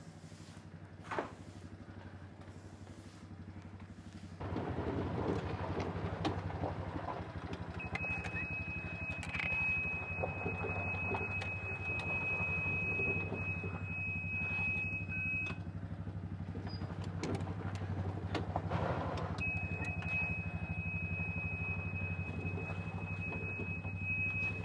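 Golf cart engine starting about four seconds in and then running steadily, with a high-pitched beep tone sounding continuously for several seconds, twice.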